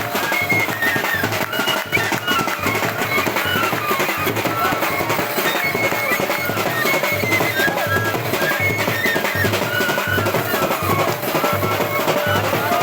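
Indian wedding dance music playing loud, with a steady heavy drum beat under a high melody line.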